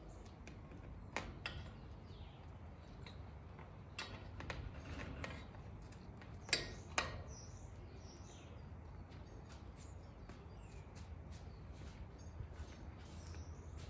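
A few sharp clicks and knocks in the first half, the loudest two about six and a half and seven seconds in, as the wire hangers of hanging plant pots are hooked and shifted on a metal pergola rail. Birds chirp in the background over a low steady rumble.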